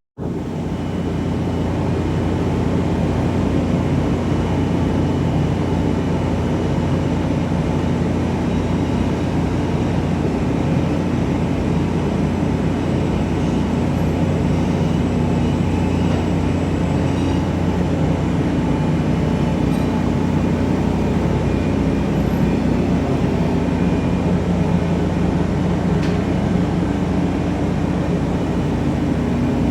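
Subway rail equipment in a station: a steady, heavy rumble with a low hum.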